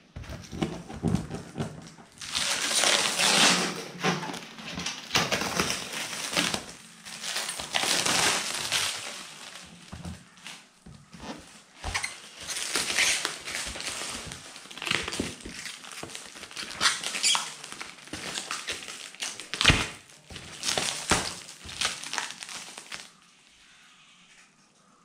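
Clear plastic stretch wrap being handled and pulled off a cardboard box: an irregular run of crinkling, crackling and rustling that stops near the end.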